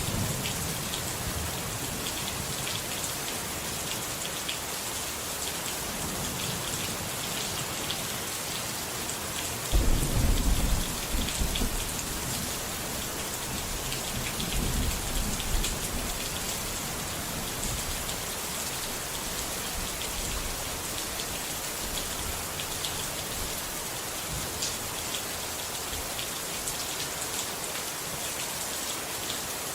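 Steady rain falling, with rumbles of thunder: a loud roll about ten seconds in and a softer one a few seconds after.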